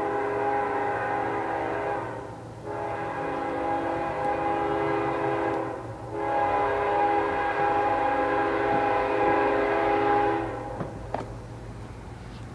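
CSX freight locomotive's air horn sounding a chord in long blasts, with two brief breaks, as the train approaches. It stops about ten seconds in, leaving a low rumble.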